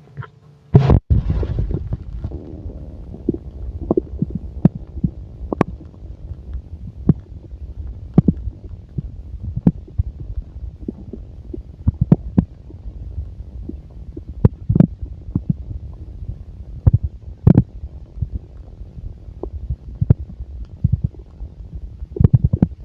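Gurgling sounds of a full stomach: a low continuous rumble with irregular sharp pops and gurgles, roughly one a second.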